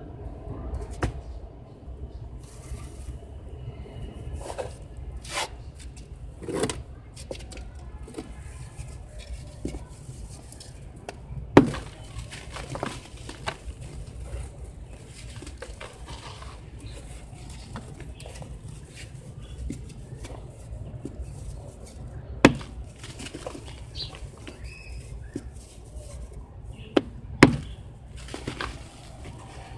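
Dry sand-cement chunks crushed and crumbled by hand in a plastic bucket: gritty crunching and crackling, with sharp cracks as blocks snap, the loudest about a third of the way in and twice more in the last third.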